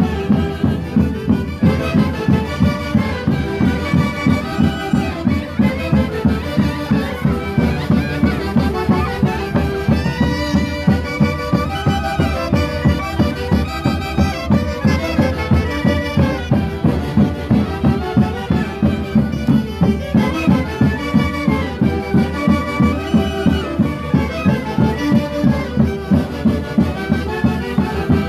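Traditional Andean orquesta playing a Santiago dance tune: a wind-instrument melody over a steady drum beat of about two to three beats a second.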